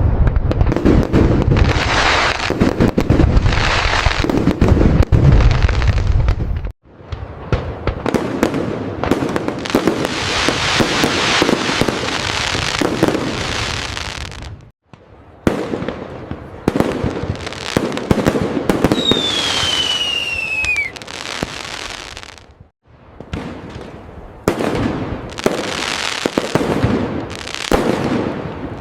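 Fireworks display: dense crackling and rapid sharp bursts, with heavy low booms for the first several seconds and a falling whistle about twenty seconds in. The sound breaks off abruptly three times, as if separate recordings are spliced together.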